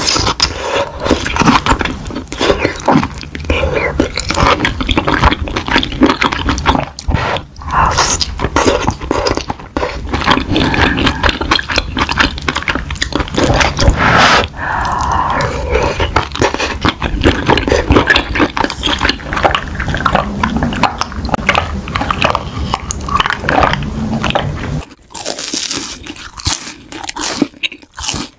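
Close-miked eating sounds: wet chewing and smacking of spicy, cheesy shellfish meat, with many sharp mouth clicks packed close together. Near the end the sound drops to a quieter, sparser stretch.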